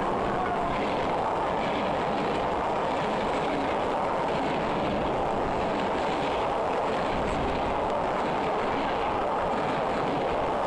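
Passenger train coaches rolling past close by: a steady rush of wheel and rail noise.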